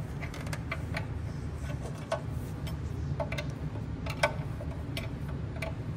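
Irregular light metallic clicks and ticks of a hand wrench on the fitting as a new number one cylinder fuel injection line is screwed on and tightened on a 6.7L Cummins engine, over a low steady hum.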